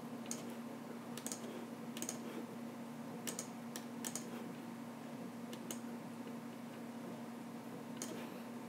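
About eight sharp, irregularly spaced clicks from a computer mouse and keyboard, over a steady low hum.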